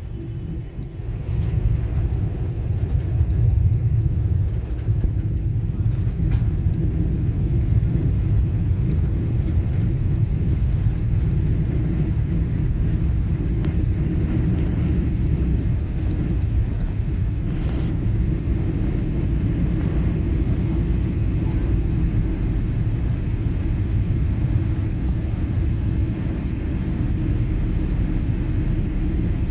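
Steady low rumble of a Boeing 777 airliner in motion, with a constant drone and no distinct events.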